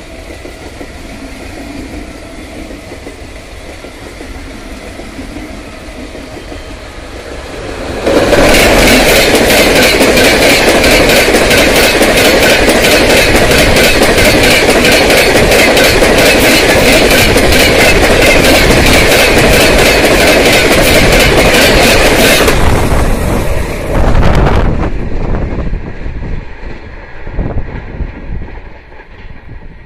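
Express passenger train of LHB coaches, hauled by a WAP-7 electric locomotive, passing at high speed close by. A low rumble builds as it approaches, then about eight seconds in it turns suddenly loud with a rapid clickety-clack of wheels over rail joints. This goes on for about fourteen seconds, then surges once more as the last coach goes by and falls away.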